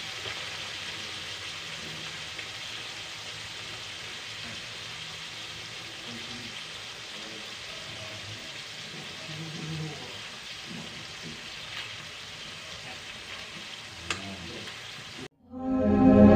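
Tulingan fish cooking in coconut milk in an aluminium wok, a steady sizzling simmer with a spoon stirring in the pan and one sharp tap about 14 seconds in. Near the end the cooking sound cuts off and loud music starts.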